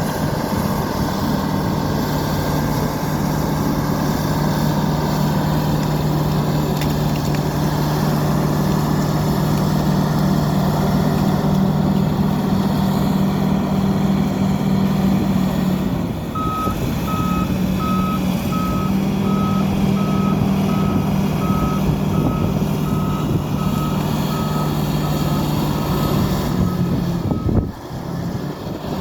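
Bulldozer's diesel engine running steadily. About sixteen seconds in, its reversing alarm starts beeping, roughly one and a half beeps a second, for about ten seconds while the machine backs up.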